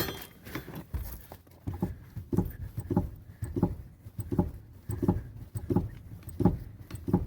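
Hand-tool work on a car: short knocks or clicks repeating at an even pace, about three every two seconds.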